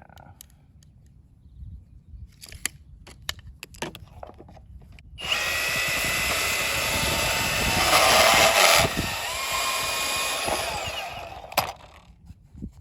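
Milwaukee portable band saw running and cutting through PVC pipe for about six seconds, louder partway through as the blade bites, after a few handling clicks and knocks.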